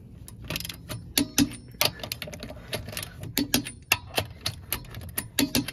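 Socket ratchet clicking in quick irregular runs as lug nuts are tightened back onto an alloy wheel.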